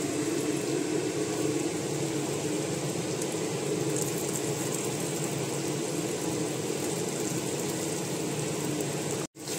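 Kitchen chimney (range-hood exhaust fan) running with a steady hum, cutting out briefly near the end.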